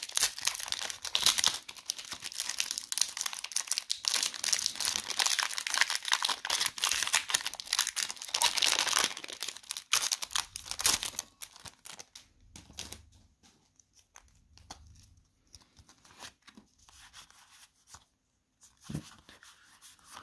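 Pokémon booster pack wrappers being torn open and crinkled by hand: dense crackling and tearing for about the first eleven seconds, then quieter, scattered rustles and clicks as the cards are handled.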